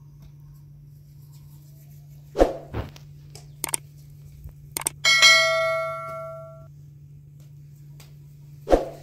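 Metal cookware being handled: a few knocks and clicks, then about halfway through a metal piece is struck and rings for about a second and a half, with another knock near the end.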